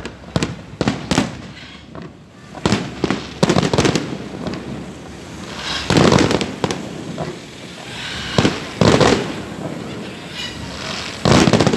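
Fireworks display: aerial shells bursting in a series of sharp bangs, quick-fire in the first few seconds, with heavier booms about six seconds in, around nine seconds and just before the end.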